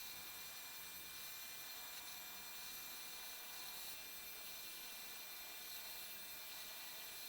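Faint steady hiss with no distinct events: shop room tone.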